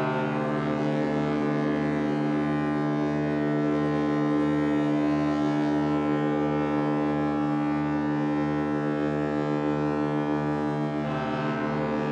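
Several ship horns sounding together, held as one sustained chord, with a low throb of about two pulses a second beneath it. About 11 s in, one note drops out and a brighter one joins.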